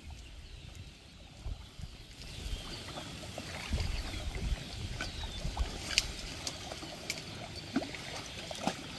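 Irregular sloshing and splashing of shallow marsh water, with scattered small knocks.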